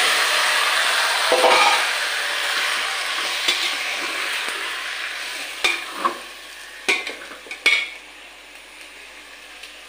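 Chicken curry frying in a steel pot, the sizzle dying down, while a spatula stirs it and scrapes and knocks against the pot several times.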